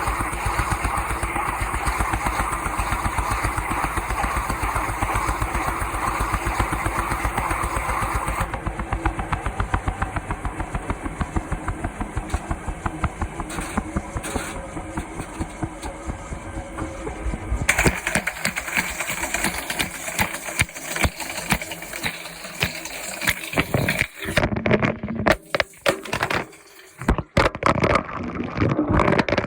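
Washing machine running, a loud, steady, fast-pulsing motor sound that changes near 9 seconds and again near 18 seconds. Irregular clicks and knocks with brief gaps take over in the last few seconds.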